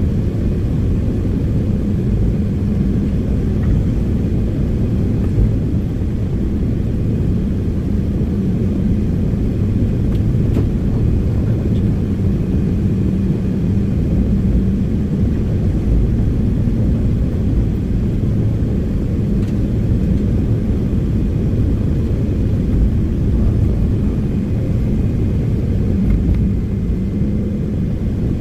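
Heavy diesel earthmoving machinery running steadily: a continuous low engine drone with a constant hum.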